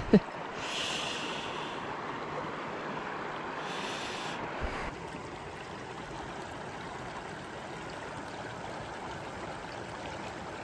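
Creek water running over rocks and gravel: a steady rushing hiss, with two short brighter rustles about one and four seconds in.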